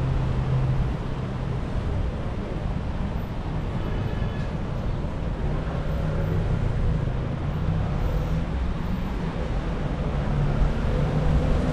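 City street traffic: motor vehicles running close by, with a steady low engine hum under the road noise.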